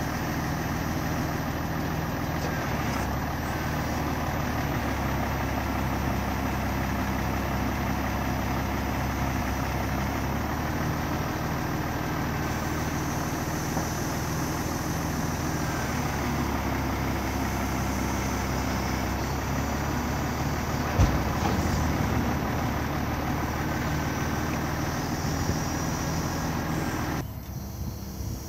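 Truck diesel engine running steadily to drive a hydraulic loader crane lifting wrapped silage bales, with a single sharp knock about two-thirds of the way in. The engine sound cuts off suddenly near the end.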